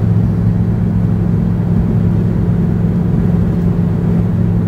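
Steady low drone of an airliner cabin: jet engine and air noise with an unchanging low hum.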